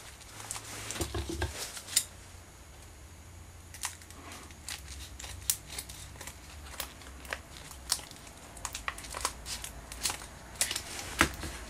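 Wallpaper scissors snipping through the foil pouch of a LiFePO4 battery cell, a string of short, sharp snips spaced irregularly, with the pouch crinkling as it is cut and handled.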